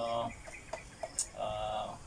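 A chicken clucking, a drawn-out call a little over a second in.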